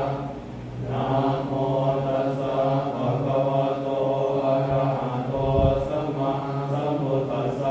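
Buddhist monks chanting together on one steady low pitch, in long drawn-out phrases with a short break for breath about half a second in.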